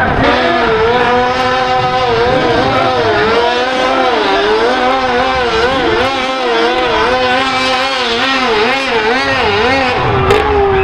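A high-revving pulling-vehicle engine under load, its revs bouncing rapidly up and down.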